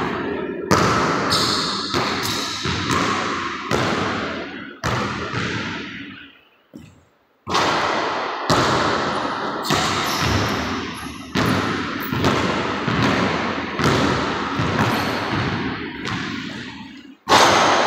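A basketball repeatedly thuds on a hardwood gym floor and bangs off the backboard and rim. Each hit rings out with a long echo through the large, empty gym.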